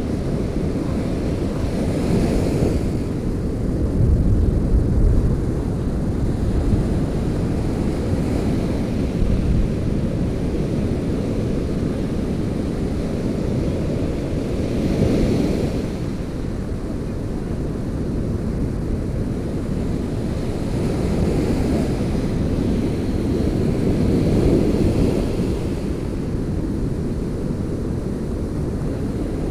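Surf breaking and washing up a sandy beach, a steady rush that swells now and then as waves come in, with wind buffeting the microphone.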